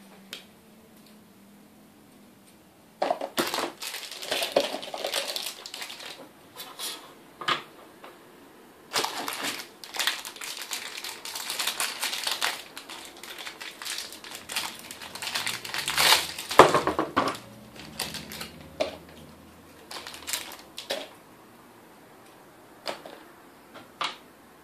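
Plastic bags crinkling and rustling in irregular bursts as small metal 5-pin aviation connectors are unwrapped and handled, with light clicks of the metal parts knocking together. It starts about three seconds in and is busiest and loudest around two-thirds of the way through.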